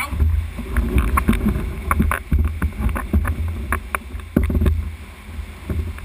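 Sea swell sloshing and slapping around a kayak at a rocky cave mouth, with an irregular run of short, sharp splashes and knocks. A steady low rumble of wind and water on the microphone runs underneath.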